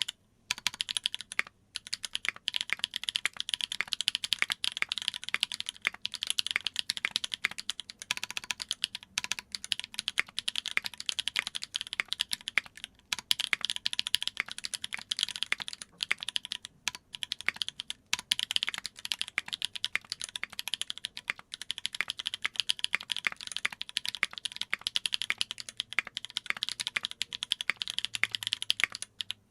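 Steady fast typing on a mechanical keyboard with lubed Holy Panda tactile switches on an aluminum plate and GMK keycaps, a dense run of keystroke clacks broken by a few short pauses.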